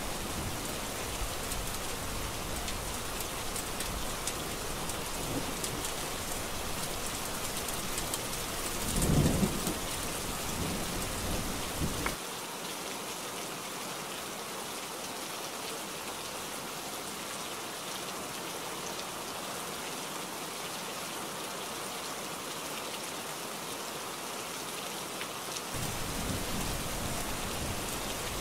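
Heavy rain falling steadily, with thunder rumbling low underneath, loudest about nine seconds in. The rumble cuts off abruptly about twelve seconds in, leaving only the rain, and returns a couple of seconds before the end.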